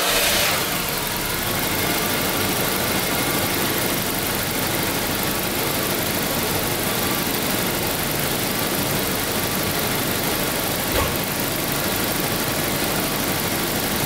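Jaguar V12 engine idling steadily and smoothly, with no odd whooshing noise at idle; a single brief click about eleven seconds in.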